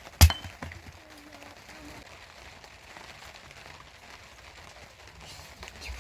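A single sharp, loud impact just after the start, the last of a series of blows about a second apart, followed by faint steady background noise.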